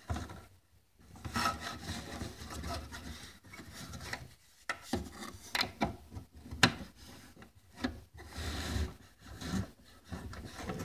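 Plastic lens cover being slid and pressed onto an LED under-cabinet light fixture: uneven rubbing and scraping of plastic, with a few sharp clicks midway as it is worked into place.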